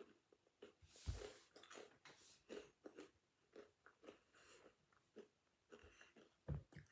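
A person chewing a crunchy sweet with the mouth close to the microphone: a run of quiet crunches, about two to three a second, the loudest about a second in.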